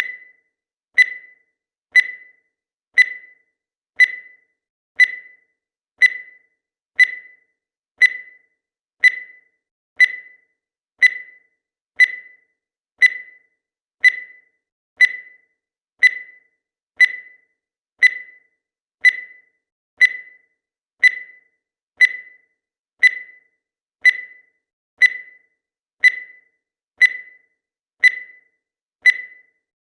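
Countdown timer sounding a short, sharp electronic beep once every second, each one dying away quickly, at an even, unchanging pace.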